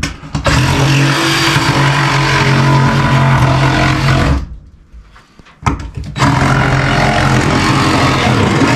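Handheld power tool running under load as it cuts away the ragged edge of a hole through the wall to enlarge it: two long runs with a steady motor hum, stopping for about a second and a half near the middle with a few clicks before starting again.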